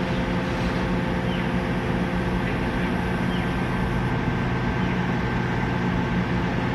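Heavy construction machinery engine running at a steady, even pitch, with no strikes or knocks.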